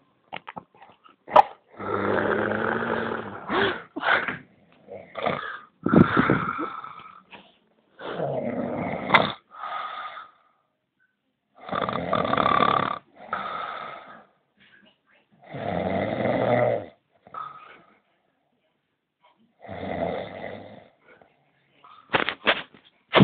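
A man snoring in his sleep: about six snores, roughly one every three to four seconds, each lasting a second or so, with quiet breaths between.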